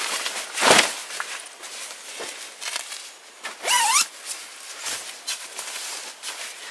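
Footsteps and clothing rustling while walking, with a loud swish a little under a second in and a short rising squeak near four seconds.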